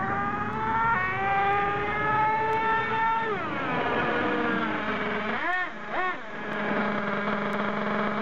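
Thunder Tiger MTA4 S28 monster truck's .28 nitro engine running at high revs, its pitch climbing for about three seconds before dropping off as the throttle is released. Two quick throttle blips follow a couple of seconds later, then the engine settles to a steady idle.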